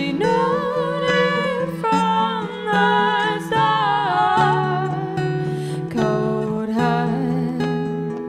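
Live acoustic folk music: two women singing with acoustic guitar and ukulele accompaniment, the voices holding long, wavering notes over the steadily played strings.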